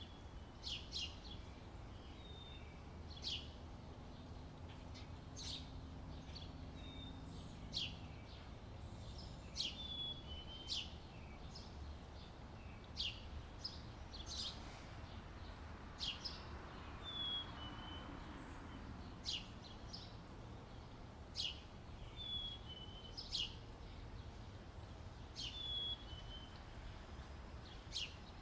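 Outdoor ambience of birds chirping: short sharp chirps every second or two, some with brief falling whistled notes, over a steady low background rumble.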